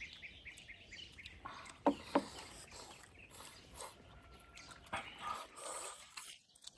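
Quiet outdoor ambience with birds chirping faintly, and two sharp knocks close together about two seconds in.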